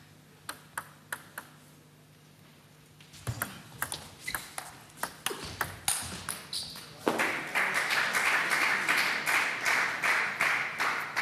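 Table tennis ball clicking a few times on the table, then a rally of quick bat hits and table bounces from about three seconds in. About seven seconds in the point ends and the audience applauds.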